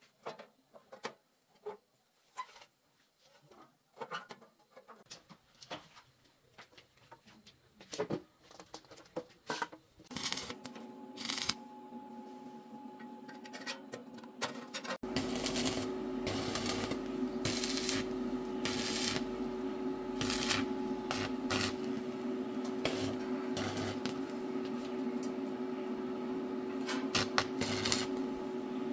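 Light clinks of steel parts being handled, then from about ten seconds a welding machine's steady hum, louder from about fifteen seconds in, with the irregular crackle of a stick-welding arc as a steel funnel is tack-welded onto a round steel housing.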